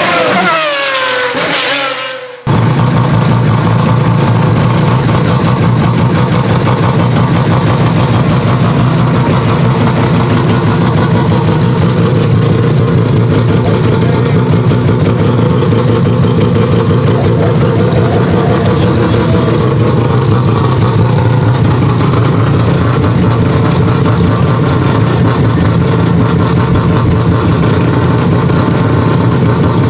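A Mazda RX-7 Group B's naturally aspirated 13B twin-rotor Wankel engine idling steadily at about 2,000 rpm, with a fast, even, choppy pulse. It starts about two seconds in, after a falling intro sound cuts off.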